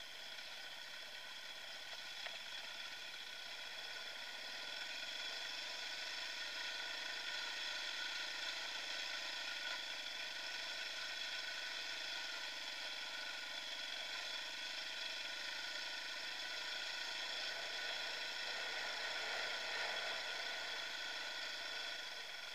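Dirt bike engine running steadily while riding, its pitch holding even, a little louder from about four seconds in.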